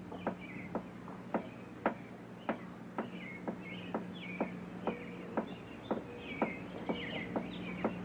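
Footsteps on a hard path, about two a second and evenly paced, with birds chirping over them.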